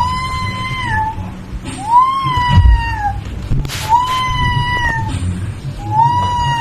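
A recorded cat meow played back four times in a row, each call about a second long with a short gap between, each time the same steady call.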